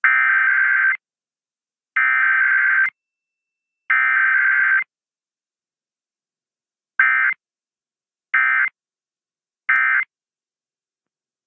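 Emergency Alert System SAME digital data bursts: three header bursts about a second long each, a second apart, then after a pause three short end-of-message bursts.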